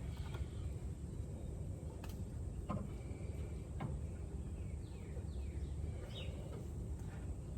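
Outdoor ambience: a steady low rumble with a few faint clicks, and a few short, faint bird chirps in the middle.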